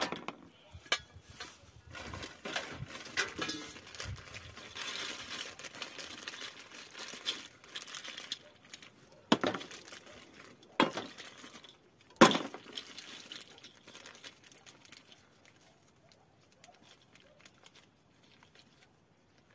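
Crinkly scraping and rustling of a plastic end cap being cut and worked, then three sharp knocks about a second and a half apart, the last the loudest, as the cap is hammered onto a rabbit cage's metal leg.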